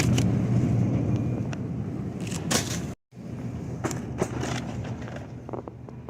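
Shopping cart wheels rolling over a hard store floor with a steady rumble, then after a short break a quieter stretch of scattered clicks and knocks as the cart and goods are handled.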